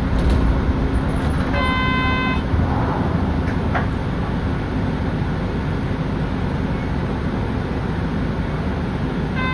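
Interior of a 2007 Nissan Diesel Space Runner RP city bus standing at a stop with its diesel engine idling steadily. About a second and a half in, a short electronic beep sounds, with a faint click or two.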